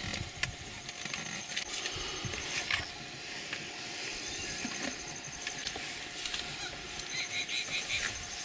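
African wild dogs twittering while feeding at a kill: scattered high-pitched chirping calls, with a quick run of about five chirps near the end.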